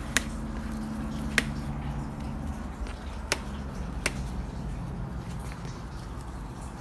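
Four sharp snaps, one to two seconds apart, of ripe strawberries being picked from hydroponic plants, over a low steady hum.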